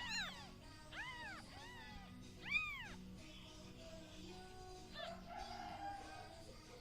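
Newborn kittens mewing: four short, high-pitched cries in the first three seconds, each rising and falling in pitch, the last the loudest, then quieter.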